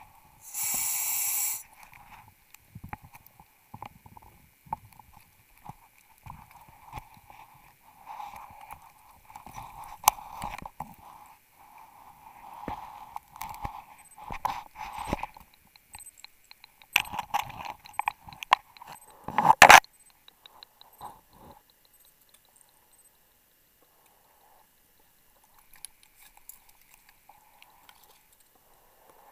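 Underwater diving sounds: a short hiss about half a second in, then scattered clicks and knocks of dive gear against the wreck. The louder knocks come about two-thirds of the way through, and it goes nearly quiet near the end.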